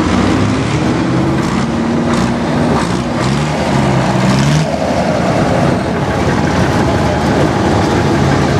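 Engines of vintage military vehicles running steadily as a jeep and a heavy cargo truck drive slowly past.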